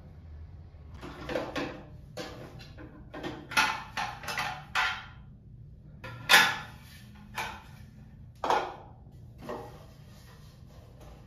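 Hard plastic suction organizer pieces being handled: a string of clacks, knocks and scrapes as the plastic cup and basket are pulled apart and set down, about ten in all, the loudest about six seconds in.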